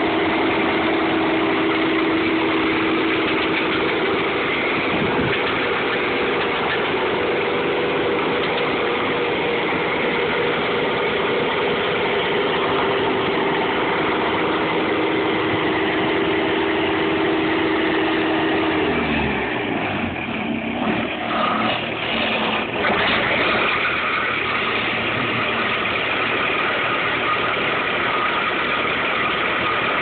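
Engine of a Vermeer SC60TX tracked stump cutter running steadily with a constant whine. About two-thirds of the way through, the pitch drops sharply as the machine slows down; the sound is uneven for a few seconds, then it runs steady again.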